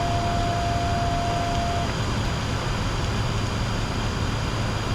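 Steady flight-deck noise of a Bombardier Challenger 604 in the climb: an even rush of airflow and engine noise with a low hum and a faint high whine. A single steady tone sounds for about the first two seconds, then stops.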